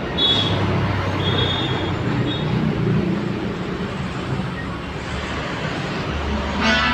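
Steady road traffic noise from vehicles passing on the street, with a brief high-pitched sound just before the end.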